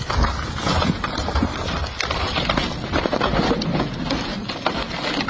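Wood cracking and splintering in a rapid, irregular run of snaps as a large tree comes down and its limbs break.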